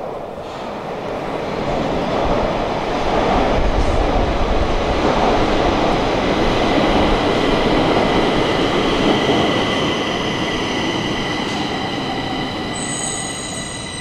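Stockholm metro train moving through the station, its rumble swelling over the first few seconds, holding, then easing off near the end. Steady high-pitched wheel squeal or motor whine comes in about halfway through and grows.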